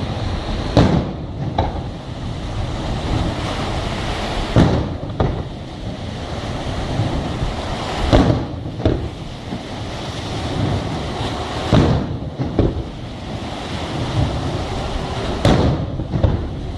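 Fireworks shells bursting overhead, sharp bangs coming in pairs about every three and a half seconds, over a steady rushing noise of wind on the microphone.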